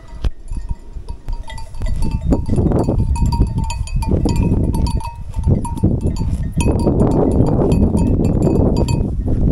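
Many livestock bells clinking irregularly, many strikes overlapping, over a dense low noise that grows louder about two seconds in and again past the middle.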